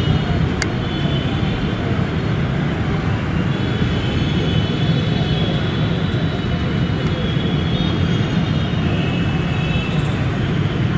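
Steady low rumble of open-air background noise, with faint high thin tones coming and going.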